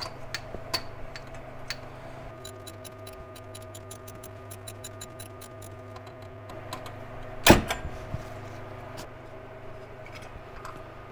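Socket ratchet clicking in a fast, even run of about seven clicks a second for roughly four seconds as a spark plug is backed out of the Chevy 350 small-block V8's cylinder head, with a few scattered clicks before it. One loud knock comes about seven and a half seconds in, and a steady hum runs underneath.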